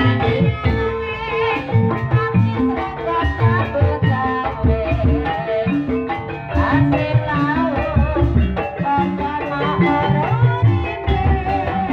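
Live Javanese gamelan accompaniment for an ebeg dance: drums keep a steady beat under ringing tuned metal percussion, with a voice singing over it.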